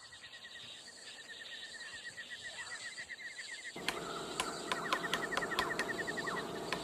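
A rapid string of high chirps repeats over a low outdoor hiss. About halfway in, a louder steady rush of water comes up, with sharp ticks scattered through it, while the chirping goes on.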